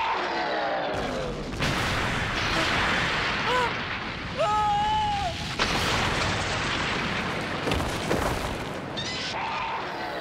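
Kaiju battle sound effects: a run of heavy explosions and blasts with debris. A monster roar with a falling pitch sounds near the start and near the end, and a held, pitched cry about halfway through.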